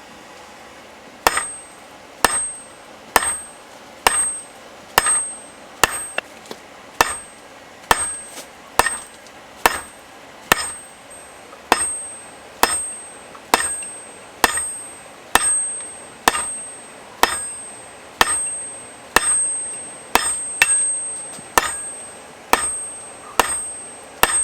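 Blacksmith's hand hammer forging hot steel on an anvil while shaping a tong blank: steady blows about one a second, starting about a second in, each with a short metallic ring.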